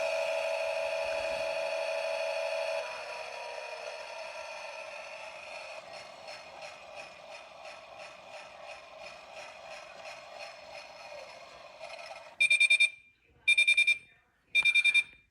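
Miele washing machine's electronic signal: a held tone that drops in level after about three seconds and carries on faintly with a fluttering pattern, then three loud half-second beeps about a second apart near the end.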